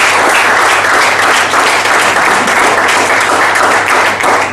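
An indoor audience applauding steadily, a dense mass of many hands clapping.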